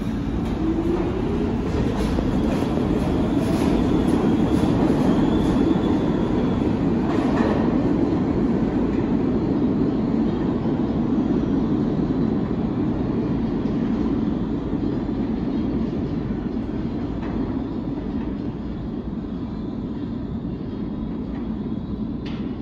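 New York City subway train running through the station: a heavy steady rumble with wheels clacking over rail joints and a motor whine rising in pitch in the first few seconds, fading a little toward the end.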